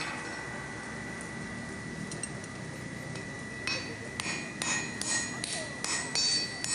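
Hand hammer striking red-hot steel on an anvil: after a quiet start, a run of ringing blows, about two a second, beginning a little past halfway.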